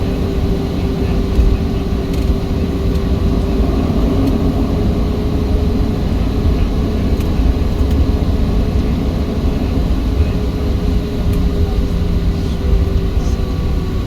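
Cabin noise of a Boeing 737-700 taxiing: a steady low rumble with a constant hum from its CFM56-7B engines at low taxi power.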